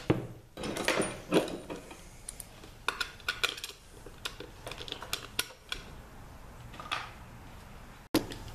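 Metal tools and parts knocking and clinking by hand: a few louder knocks in the first second and a half, then lighter, sharper clinks scattered through the rest, as a socket and wheel bearings are handled at a wheel hub.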